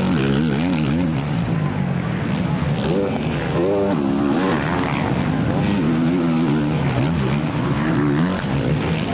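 Several dirt bike engines revving, their pitch rising and falling again and again as the riders work the throttles.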